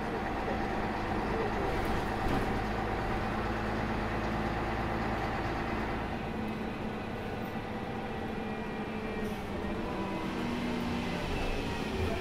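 Ikarus 280 articulated bus with a ZF Ecomat automatic gearbox, its diesel engine running steadily as the bus drives. The low rumble eases about six seconds in.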